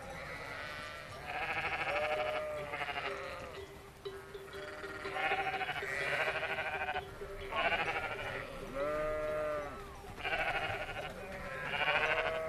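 A flock of sheep bleating: many overlapping bleats of differing pitch, one after another with brief gaps.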